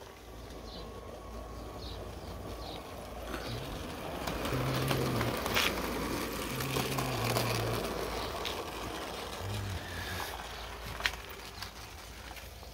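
Small garden-railway model of the Chaloner vertical-boiler locomotive running with its slate wagons on the track, its running noise growing louder as the camera passes close over it, then fading, with a few sharp clicks.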